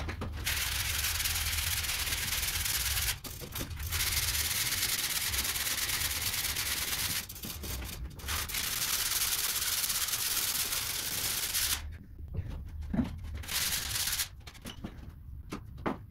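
A ceiling being sanded by hand with sandpaper, which makes a steady rubbing hiss. The hiss runs in three long stretches of a few seconds each, with short breaks between them, then stops about three-quarters of the way in, with one brief burst shortly after.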